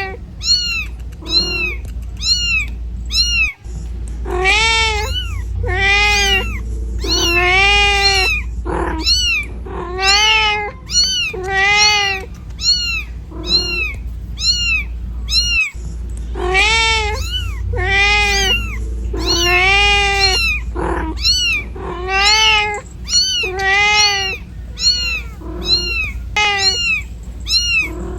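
A domestic cat meowing over and over, a long string of rising-and-falling calls about one to two a second, some loud and low and some higher and fainter: a mother cat calling for her kittens. A steady low rumble runs underneath.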